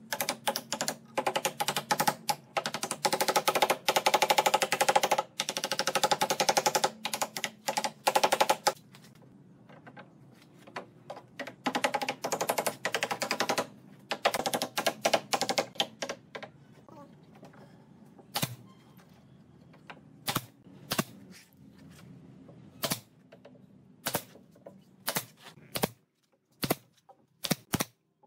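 Rapid runs of sharp clicks and taps, dense through the first half and again a little later, then single sharp clicks about a second apart near the end.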